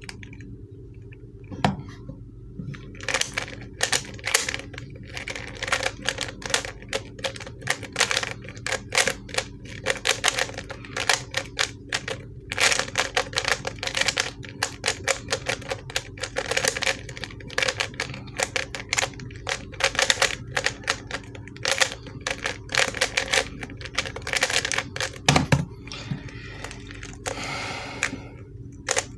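ShengShou 3x3 speed cube being turned fast by hand through a solve: a dense, irregular stream of plastic clicks and clacks as the layers snap round. The cube is a stiff-turning one. Near the end comes a single low thump.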